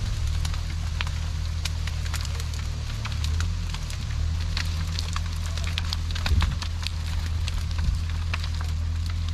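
Twigs and branches crackling and snapping many times as a felled tree and its brush are dragged across the ground, over a steady low engine drone.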